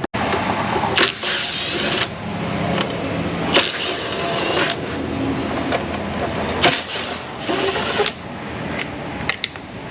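Steady mechanical noise with sharp clicks and knocks now and then, as tools work on the 10 mm fasteners of a cover on a car.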